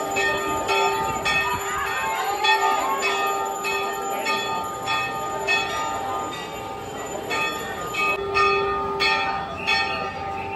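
Temple bells rung over and over, a little under two strikes a second with a short pause about two-thirds of the way through, the ringing carrying on between strikes.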